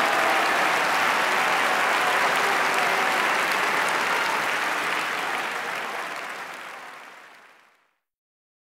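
Opera audience applauding steadily during the curtain call. The applause fades out from about five seconds in and is gone by about eight seconds.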